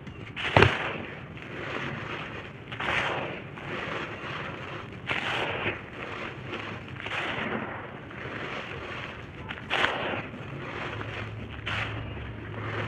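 Dry red brick and dirt chunks being crushed and crumbled, a run of gritty crunches with a sharp crack about half a second in and another loud crunch near the end.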